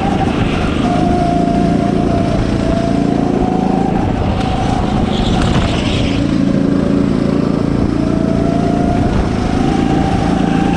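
Go-kart engine running under load, heard from the driver's seat. Its pitch dips around the middle, then climbs again as it accelerates.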